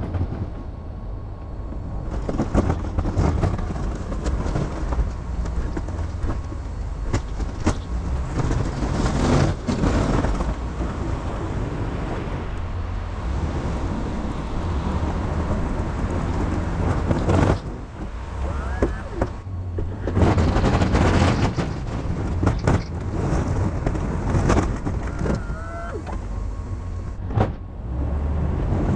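GMC Sierra 2500 pickup running under load while its Snow Dogg plow pushes snow, a continuous low rumble with rattles and knocks and a couple of brief rising whines.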